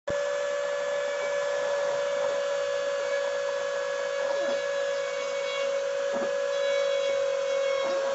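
CNC router spindle running with a steady high whine and hiss while carving, with three brief downward sweeps in pitch at about four, six and eight seconds in.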